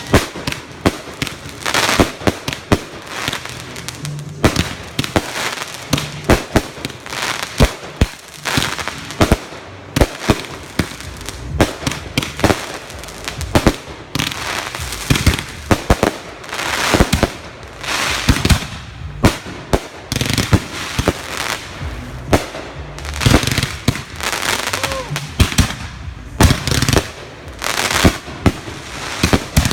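Consumer fireworks going off in a dense, continuous barrage: many sharp bangs and crackling reports, often several a second.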